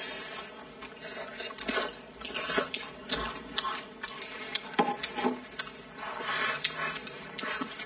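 Close-up eating sounds: wet chewing and slurping of braised chicken and greens, with a few sharp clicks of chopsticks against the bowl.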